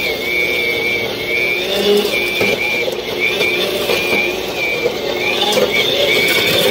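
Corded electric rototiller running as its tines churn through dry soil: a steady high motor whine that wavers up and down in pitch, over a gritty churning noise.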